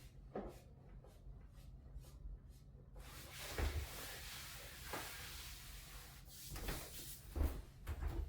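Handling noise during a chiropractic treatment: faint ticks, then from about three seconds in a rustling hiss of clothing and hands on a treatment table, with several dull thumps.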